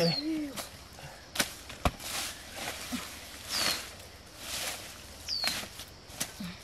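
Knife blade digging and scraping in the soil in a few repeated strokes, with a couple of sharp ticks and short scraping swishes every second or two.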